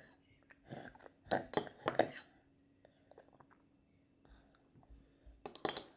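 Toddler eating yogurt and apple with a metal spoon: the spoon clinks and scrapes in a ceramic bowl, with wet chewing and lip-smacking. A cluster of sharp clinks and mouth sounds comes about one to two seconds in, and another near the end.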